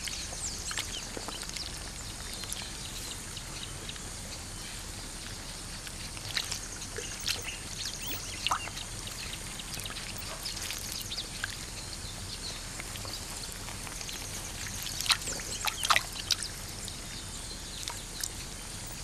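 Wetland ambience: a steady background hiss with scattered short animal calls and water sounds, a cluster of them loudest about fifteen to sixteen seconds in.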